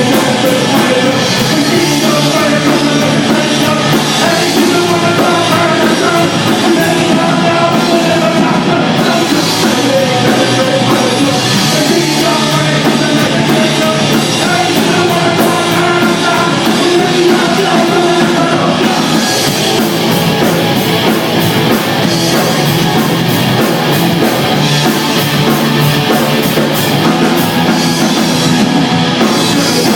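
Loud hard rock music: a full band with drum kit playing without a break.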